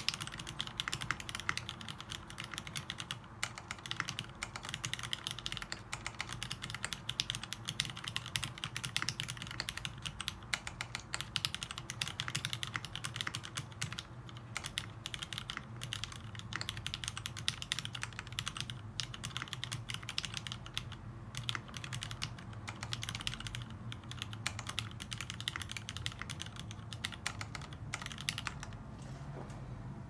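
Continuous fast typing on a custom Montage prototype mechanical keyboard: retooled Cherry MX Black linear switches lubed with Krytox 205g0 on 52 g springs, in a 1.5 mm aluminium top-mount plate, with Permatex-lubed stabilizers. The typing stops shortly before the end.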